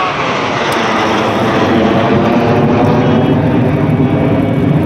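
Military display aircraft flying past, a loud, steady engine noise with no break.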